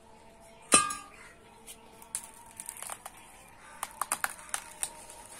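A metal blade clangs once with a ringing tone about a second in, followed by a string of lighter clicks and knocks.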